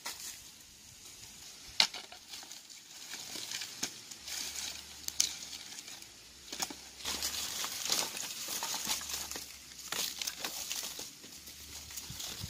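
Dry branches and twigs being dragged and stacked, crackling and scraping in bursts, with a sharp crack about two seconds in.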